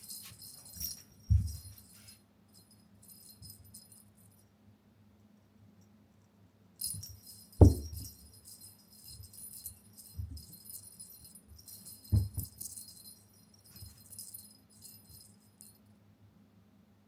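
Small bell jingling in short bursts with pauses between, along with a few dull thumps; the loudest thump comes about halfway through.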